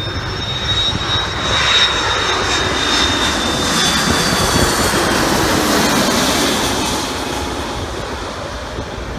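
KLM Airbus A330's jet engines passing low overhead on final approach: a high steady fan whine over a rush of jet noise that swells to its loudest in the middle. The sound drops in pitch as the airliner goes by, then fades.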